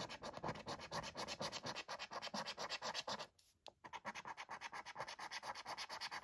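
Scratching off the coating of a paper lottery scratchcard: quick, rhythmic back-and-forth strokes, several a second, with a brief pause about three and a half seconds in.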